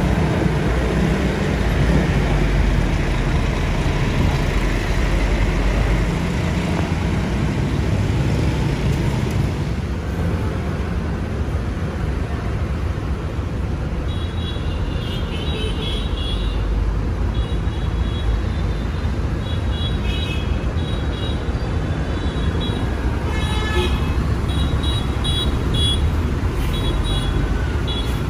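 Large sleeper coaches' diesel engines running as they pull out, a heavy low rumble with traffic noise. From about halfway, short high-pitched horn tones sound on and off in quick groups.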